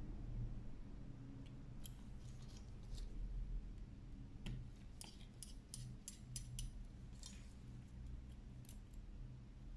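Faint, scattered clicks and ticks of small repair tools on a phone's parts during disassembly, with a quick run of about half a dozen clicks midway, over a low steady hum.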